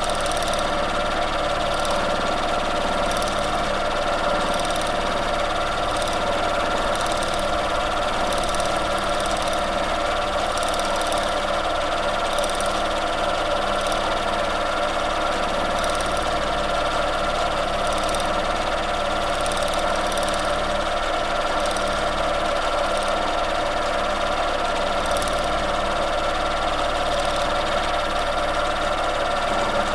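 Domestic sewing machine running steadily through free-motion quilting, the needle stitching continuously through the layered quilt as it is moved under gloved hands.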